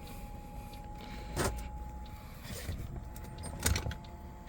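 Bunk heater's blower running at its highest speed with a steady whine and low hum, blowing air that is still cold, so the heater has not lit. A few short knocks about a second and a half, two and a half, and three and a half seconds in.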